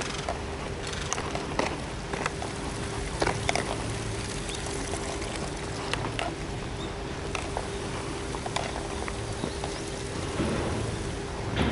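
Footsteps crunching on a gravel path, uneven short crunches every half second to second, over a faint steady hum.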